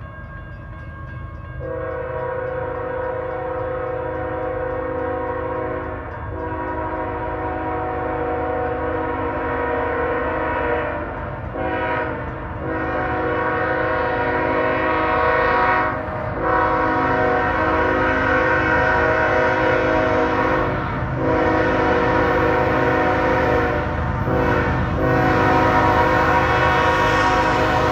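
CSX GE ES44AH diesel locomotive's air horn sounding a long series of blasts, held for several seconds each with brief breaks between, as the train approaches a grade crossing. The horn grows steadily louder over the low rumble of the approaching train.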